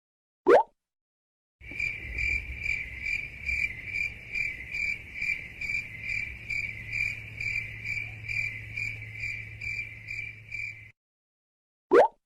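Cricket chirping sound effect, the meme used for an awkward silence: evenly spaced high chirps about twice a second over a low hum, lasting about nine seconds. A short rising blip sounds about half a second in and another just before the end.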